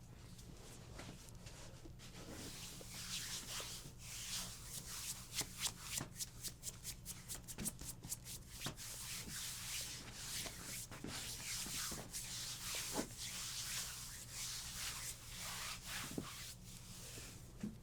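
Hands rubbing and stroking over skin in a massage, with a quick run of short, rapid strokes in the middle.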